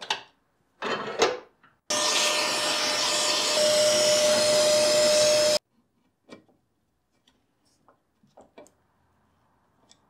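A small electric motor whirring steadily with a constant whine for about three and a half seconds, starting and cutting off abruptly. Afterwards come a few faint clicks as screws are turned with a hand screwdriver into the safe door's metal lock cover.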